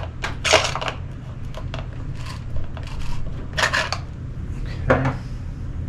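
Metal tool scraping and clinking in short bursts while the long stock bolt of a Benelli Vinci shotgun is worked back down into the stock, over a steady low hum.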